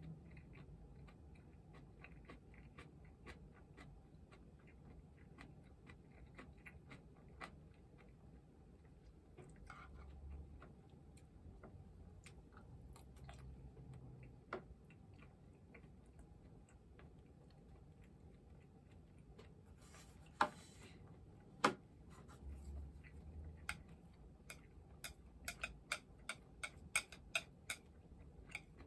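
Chopsticks clicking and tapping against bowls and dishes while eating, in small scattered clicks. Two sharper knocks come about two-thirds of the way through, as of a bowl set down on the tray, and a quick run of clicks follows near the end.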